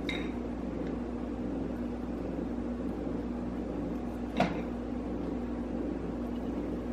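Steady electrical hum of a kitchen appliance, with a single short clink of a metal spoon against the food or bowl about four and a half seconds in.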